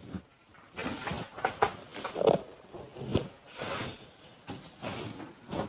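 Irregular rustling and handling noises with a few sharp clicks, the sound of people moving about.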